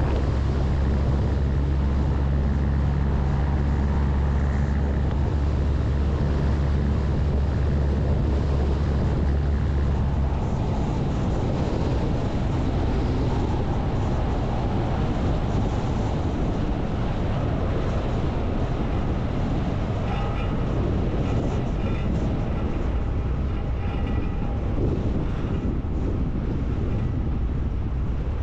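Diesel engine of a MAN LE 280 B 4x4 truck running as it drives along a gravel road, with tyre noise from the gravel. The deep engine drone eases off about ten seconds in.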